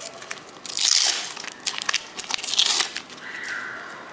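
Panini sticker packet being torn open and its wrapper crinkled by hand: two bursts of tearing and rustling, about a second in and again around two seconds in, with small crackles between.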